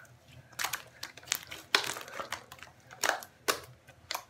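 Slime being squished, pressed and stretched by hand against a tile floor, giving irregular sharp clicks and pops, a few each second.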